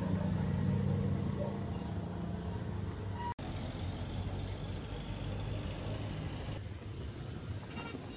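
Steady rumble of running motor-vehicle engines and traffic, with a brief dropout about three and a half seconds in.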